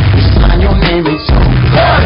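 Loud electronic pop music with a heavy, steady bass line, cutting out briefly just after a second in.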